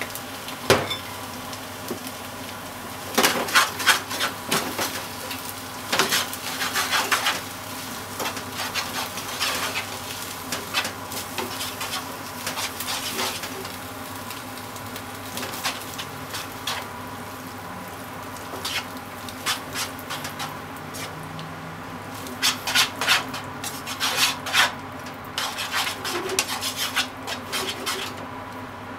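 Spaghetti with bacon and onion sizzling as it is stir-fried in a frying pan, tossed with tongs that click and scrape against the pan in several short clusters.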